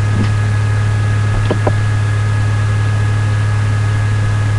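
Loud, steady low hum over an even hiss, unchanging throughout.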